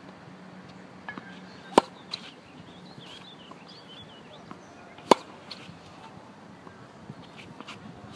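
Tennis racket strings striking the ball on forehand swings: three sharp pops, about three seconds apart, with a few fainter knocks between them.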